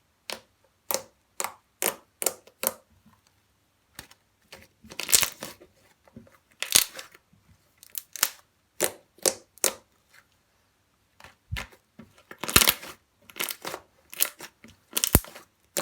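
Slime being pressed and squeezed by hand, giving a run of irregular short pops and clicks as air pockets burst, with a few longer crackling bursts in between.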